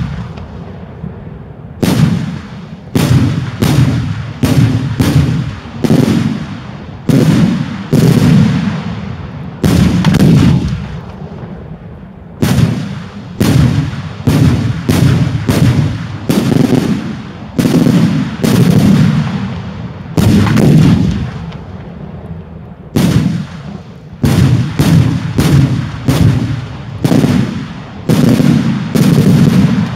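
Daytime fireworks display: aerial shells bursting with loud bangs, one after another at one to three a second, each trailing off in a rumbling echo. There is a short lull near the start and another about two-thirds of the way through.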